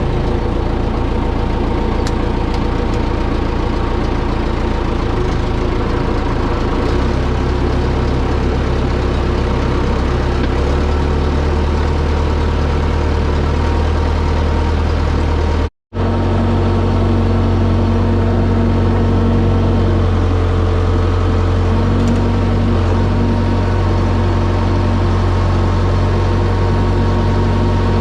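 A vehicle engine running steadily with a low, even hum whose pitch shifts slightly a few times. It cuts out for an instant about halfway through and comes back at a slightly different pitch.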